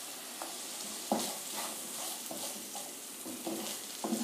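Onion and green capsicum pieces sizzling in hot oil in a frying pan, with a wooden spatula scraping and knocking against the pan as they are stirred; a sharper knock about a second in.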